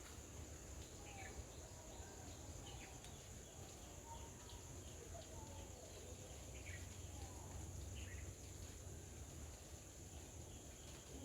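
Faint outdoor nature ambience: a steady high insect drone, with scattered short, quick bird chirps now and then over a low rumble.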